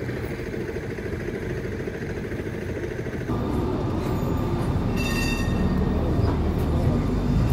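City street traffic rumble, then, after a cut about three seconds in, the louder rumble of Croydon trams at a tram stop, with brief high-pitched tones about five seconds in.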